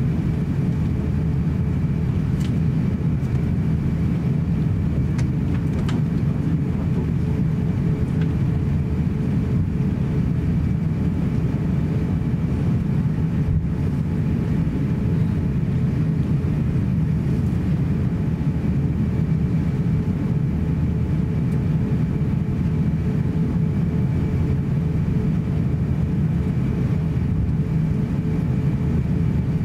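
Steady low rumble inside the cabin of an Airbus A350-900 taxiing on the ground, its Rolls-Royce Trent XWB engines at low power, with a faint steady whine above it. A few faint clicks come in the first several seconds.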